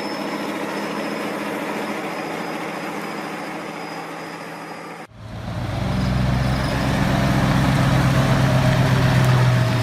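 Heavy vehicle engine running steadily, most likely a tractor pulling another out of the mud. About five seconds in it cuts abruptly to a louder, deeper engine sound with a strong low hum.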